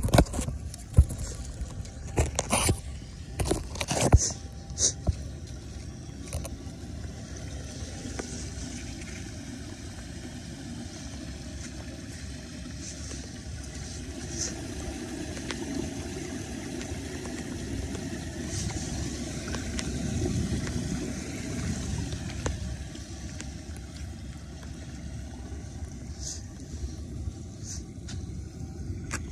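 A few sharp knocks and scrapes from handling the camera in the first few seconds, then a steady rushing noise that swells in the middle and eases off toward the end.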